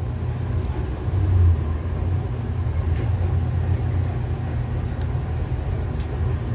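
Steady low background rumble, with a few faint small clicks from handling smartphone parts about three, five and six seconds in.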